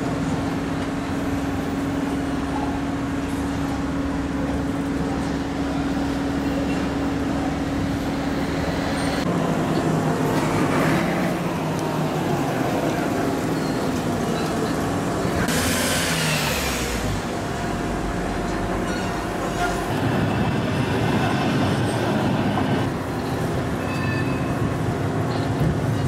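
Street traffic noise: vehicle engines running and passing, with a steady low hum through the first third and a brief loud hiss about two-thirds of the way in.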